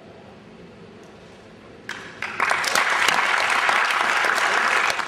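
A small group clapping: two single claps about two seconds in, then about two and a half seconds of steady applause that stops just before the end.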